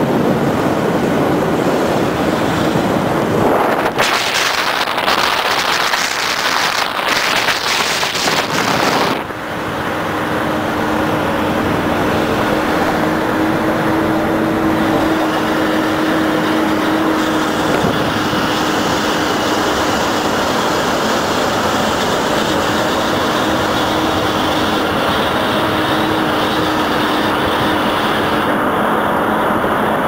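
Steady road noise and engine hum of a vehicle driving along an elevated road. A loud rushing hiss comes in about four seconds in and drops away about five seconds later, leaving a steady drone.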